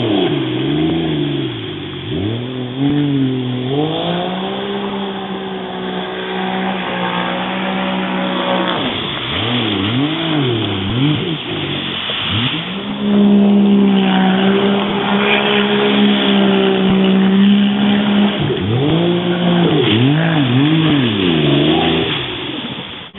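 Jet ski engine running under throttle, its pitch swinging up and down again and again as the throttle is opened and eased, then held high and steady for several seconds in the middle, where it is loudest.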